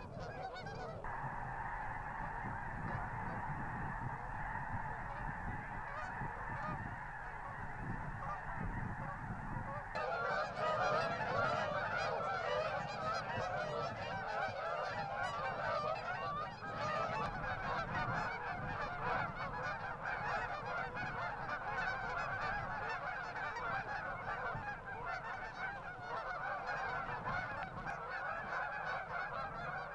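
A large flock of geese honking continuously, many overlapping calls at once. The sound changes abruptly about a second in and again about ten seconds in, as between different recordings of the flock.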